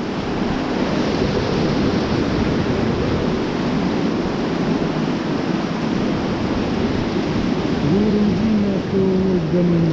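Whitewater river rapids rushing around an inflatable raft as a steady, loud wash of water noise, with wind buffeting the microphone. Near the end a person's voice calls out over it.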